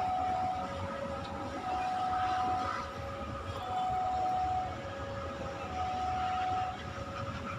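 Railway level-crossing warning alarm sounding, an electronic two-tone signal that switches between a higher and a lower note about once a second, the warning that a train is approaching.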